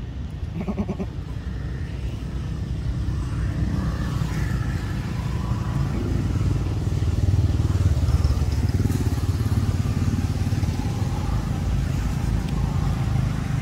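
A motor engine running steadily, growing louder toward the middle and easing off a little near the end.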